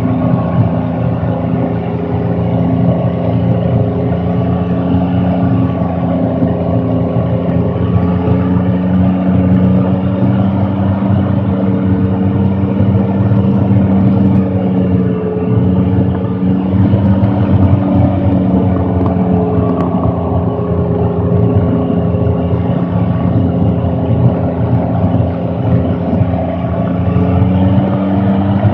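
M113A1-hulled armoured reconnaissance vehicle under way: its Detroit Diesel 6V53 two-stroke V6 diesel running steadily with track and hull rattle, the engine note rising and falling slightly.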